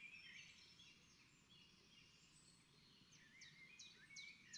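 Near silence with faint birdsong: scattered high chirps, then from about three seconds in a bird repeats quick descending chirps a few times a second.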